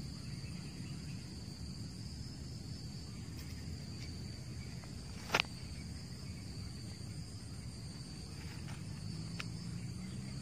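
Steady high-pitched insect drone, like crickets, over a low background hum, with a single sharp click about halfway through and a fainter one near the end.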